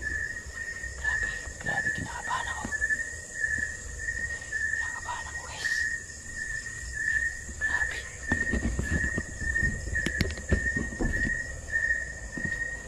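Night insects chirping in an even, steady rhythm, about two high chirps a second, over a fainter continuous high trill; from about 8 seconds in, low rustling and a few knocks, like footsteps and handling on a wooden floor.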